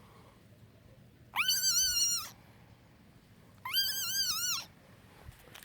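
A frog squeaking: two drawn-out, high, wavering cries of about a second each, the second about two seconds after the first, each sliding up at its start.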